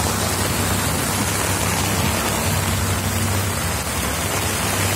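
Heavy monsoon rain: a steady, dense hiss with a steady low hum underneath.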